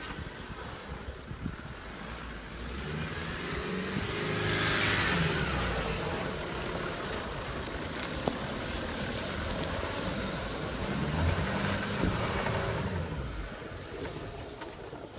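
Off-road SUV's engine, a Nissan Patrol, running under load as it drives through tall grass and up a grassy bank, the revs rising and falling. It is loudest about four to six seconds in and picks up again near the end.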